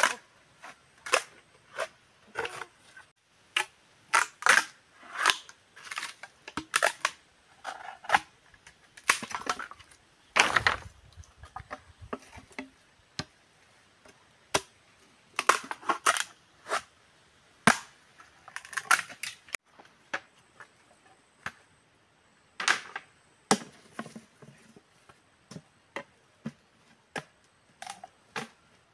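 Machete blade chopping into an upright bamboo pole: sharp, irregular knocks, often two or three in quick succession, with one longer, heavier crack about ten seconds in.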